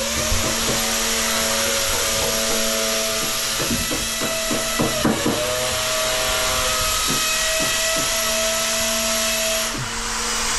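A power tool running steadily with a loud hissing noise. Its pitch wavers a few times midway, and it stops near the end.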